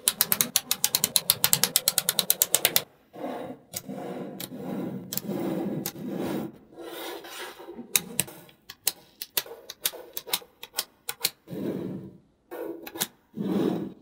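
Small magnetic balls clicking as they snap together: a fast run of clicks, about nine a second, for the first three seconds or so. After that come scattered single clicks with soft rubbing and sliding between them.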